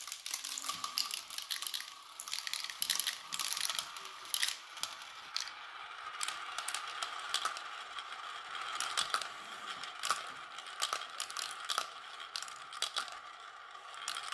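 Marbles rolling down a plastic Quercetti marble run: a steady rolling hum broken by many sharp clicks and rattles as they drop and knock through the track pieces.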